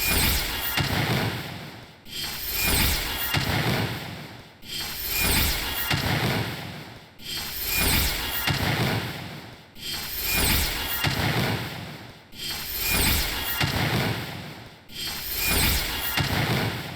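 A short noisy sound effect played on a loop, repeating about every two and a half seconds, each repeat coming in quickly and fading out.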